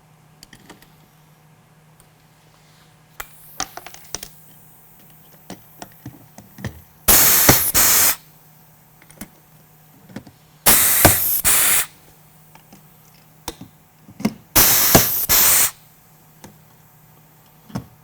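Pneumatic pop rivet gun setting rivets for a new case latch: three sharp bursts of air hiss, each about a second long and a few seconds apart. Small clicks and taps come between them as each rivet is placed.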